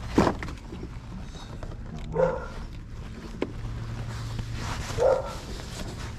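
A dog barking three times, single barks a few seconds apart, the first the loudest.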